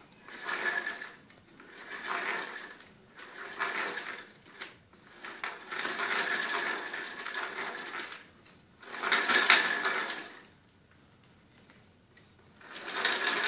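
Dismantled motorcycle engine turned by hand at the clutch basket, its gears and timing chain clicking and rattling. The sound comes in about six bursts of one to three seconds, with a longer pause before the last.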